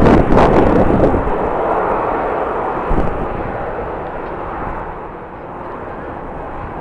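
Jet airliner engines, loud at the start and then fading steadily away as the aircraft moves off. A brief thump about three seconds in.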